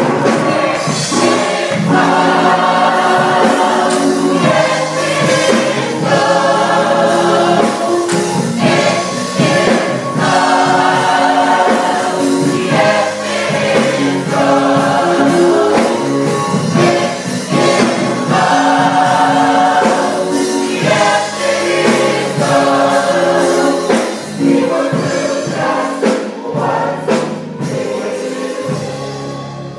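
Church gospel choir singing with instrumental accompaniment, getting quieter over the last few seconds.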